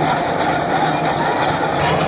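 Crawler tractor's diesel engine running steadily under load while it pulls a deep plow through dry soil.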